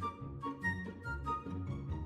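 Background music: a light instrumental tune in short, evenly spaced notes over a bass line.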